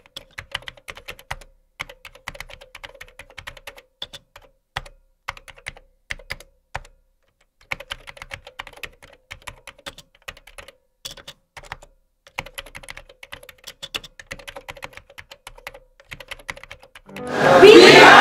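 Computer keyboard typing: fast, irregular key clicks in runs with short pauses. About a second before the end, a loud burst of voices and music comes in.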